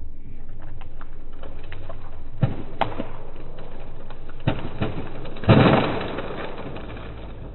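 A tree's wood cracking: a few sharp snaps, then a loud splintering crash about five and a half seconds in that fades away, over a low steady hum.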